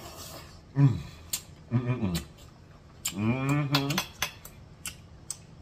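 Close-up eating sounds from a man eating spaghetti with a fork: a slurp of noodles at the start, then sharp clicks of the fork on the plate and mouth noises while chewing. Three hummed 'mmm' sounds of enjoyment come through the chewing, the longest about three seconds in.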